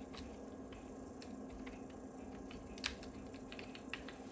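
Typing on an Apple USB keyboard: a run of light, irregular key clicks, with one sharper click about three seconds in.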